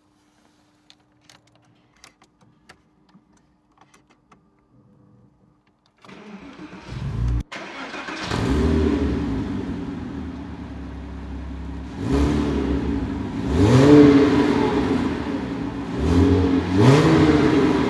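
Porsche Boxster S 987's 3.2-litre flat-six with a Capristo valved exhaust: a few faint clicks, then about six seconds in the engine is cranked and fires up, settling into a steady fast idle. It is then revved three times, the pitch rising with each blip.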